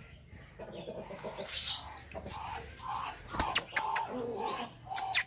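Birds calling with repeated short cooing and chirping notes. In the last two seconds come several sharp taps and wing flutters as a black francolin is handled.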